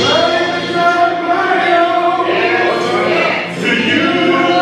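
Church choir singing together in long held notes of a worship song.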